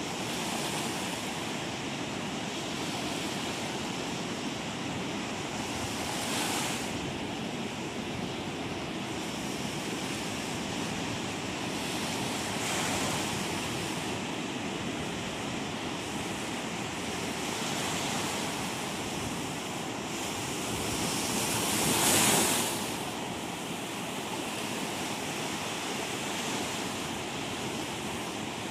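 Ocean surf breaking and washing over a shallow, rocky beach: a steady wash, with a wave breaking and swelling louder every five or six seconds. The loudest break comes a little past three quarters of the way through.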